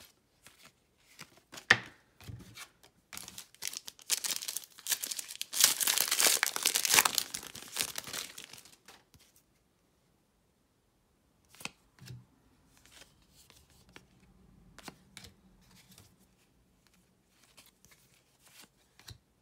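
A plastic trading-card pack wrapper crinkling and tearing for about five seconds, loudest midway. After that, soft scattered clicks and rustles of cards being slid one by one off a stack of Donruss basketball cards.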